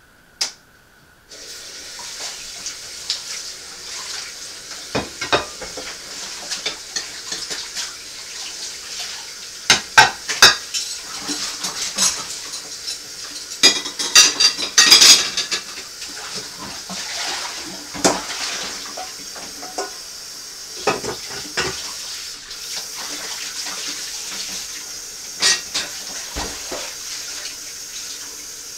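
Dishes being washed by hand in a kitchen sink: the tap runs with a steady hiss from about a second in, while plates, a pan and cutlery clatter and clink against each other and the sink, busiest around the middle.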